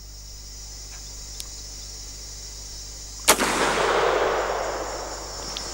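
A single shot from a Rossi Circuit Judge .44 Magnum revolving-cylinder rifle, about three seconds in, followed by a long rolling echo that fades away over about two seconds.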